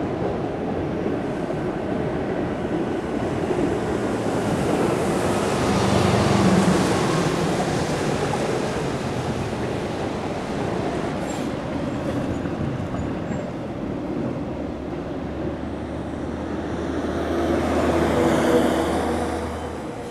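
Road traffic: vehicles passing on a nearby road with a continuous rumble, one swelling and fading about six seconds in and another swelling near the end.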